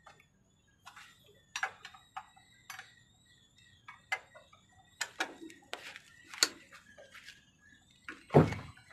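Irregular metallic clicks and knocks of a hand tool against the fittings of an inline diesel fuel injection pump as it is worked on by hand, with the heaviest knock near the end.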